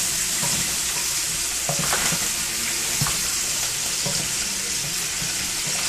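Pork ribs and backbone sizzling steadily as they fry in a little oil in a pot. A wooden spoon stirs them and knocks lightly against the pot a few times.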